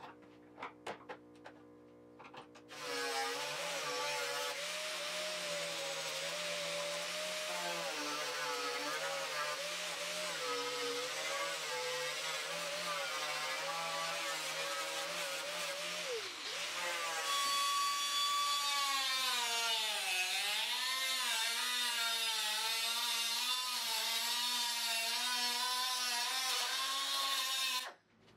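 Electric angle grinder with a sanding disc grinding the steel of a Triumph TR6 front fender, its whine dipping and recovering in pitch as it bears on the metal. It starts about three seconds in after a few light clicks, runs higher and louder from about halfway, and stops just before the end.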